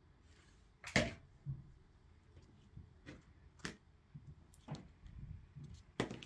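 Light clicks and taps, about half a dozen at irregular spacing, from hands handling a stiff glitter sheet and a hot glue gun at a work table.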